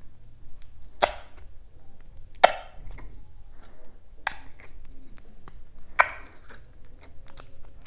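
A series of sharp clicks: four louder ones spread roughly a second and a half apart, with lighter ticks in between.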